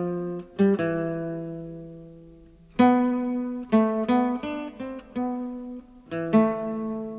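Instrumental music on a plucked acoustic guitar: single notes and chords struck in slow phrases, each ringing out and fading.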